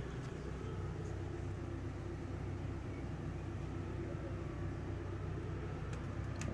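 A large engine running steadily, a low even hum, with two faint clicks near the end.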